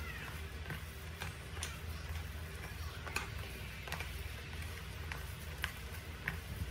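A hand kneading and squeezing shredded fish-cake mixture in a plastic tub, with sharp irregular clicks and taps of fingers against the tub about once or twice a second over a steady low hum.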